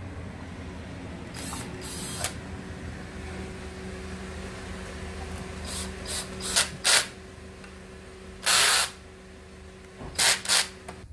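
A cordless driver runs bolts into the end cover of a submersible pump motor in a series of short bursts. The longest burst comes about three-quarters of the way through, over a steady low hum.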